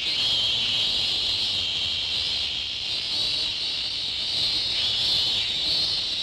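Steady high-pitched chirring of an insect chorus, one continuous drone.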